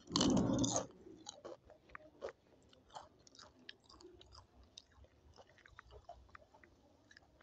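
A person chewing food close to the microphone: a loud, noisy bite in the first second, then quiet chewing with small, scattered mouth clicks.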